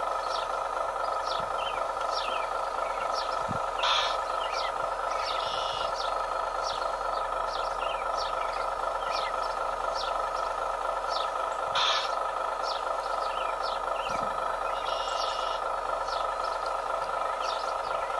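Radio-controlled model wheel loader and excavator running with a steady mechanical whine, a higher whine rising briefly twice as the loader works. Birds chirp throughout, and two sharp clicks come about four and twelve seconds in.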